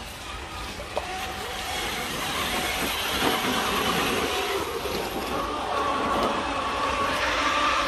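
Electric drive motors and gearboxes of RC scale crawler trucks whining as they crawl up a muddy gully, the pitch shifting with the throttle, over a steady background hiss.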